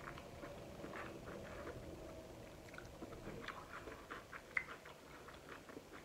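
Chewing a mouthful of stir-fried vegetables: faint, irregular small clicks, with one sharper click about four and a half seconds in.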